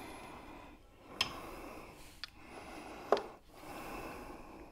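Plane blade held in a Tormek SE-77 camber jig rasping against the turning wet grindstone in short hissing passes, about one a second, with a small click as several of them begin.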